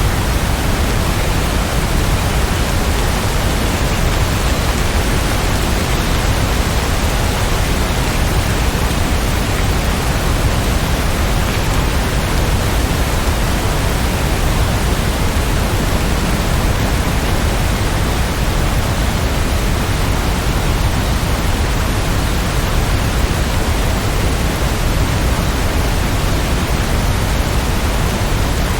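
Heavy, steady rain: a dense, even hiss with a deep low rumble beneath it and no thunderclaps.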